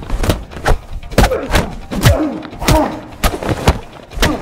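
Cinematic fight sound effects: a rapid series of about ten punch and body-hit impacts, each a sharp thud, coming every half second or so.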